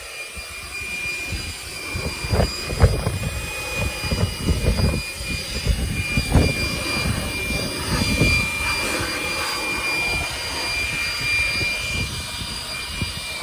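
Handheld electric air blower, a blower-vacuum, running continuously with a steady high-pitched motor whine. Its airflow rushes in uneven gusts as it is swept over the car seat and footwell to clear dust.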